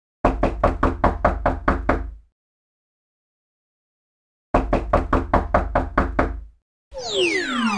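Knuckles rapping on a wooden door: two quick runs of about nine or ten knocks each, roughly four or five a second, with a pause of a couple of seconds between them. Near the end a falling-whistle cartoon sound effect starts, gliding steadily down in pitch.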